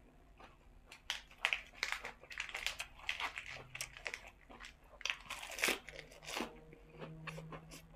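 Fresh lettuce leaves torn by hand and bitten, crisp crunching and tearing in quick clusters, loudest about five and a half seconds in, then fainter chewing.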